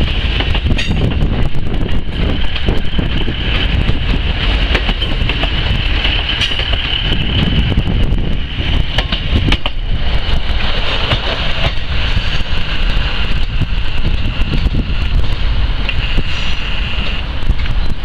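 Class 150 Sprinter diesel multiple unit running past and pulling away: low rumble of the train with rapid clicks of wheels over the rails and a steady high-pitched squeal over it.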